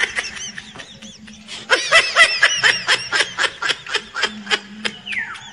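A man laughing: a quick run of short, rapid ha-ha pulses lasting about two seconds, beginning a little under two seconds in.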